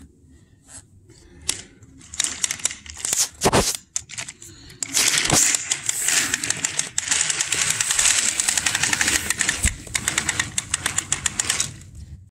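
Plastic toy train, a Henry engine pulling a truck, running along plastic toy track with a rapid clicking rattle. It starts about two seconds in, grows denser and louder about five seconds in, and stops just before the end.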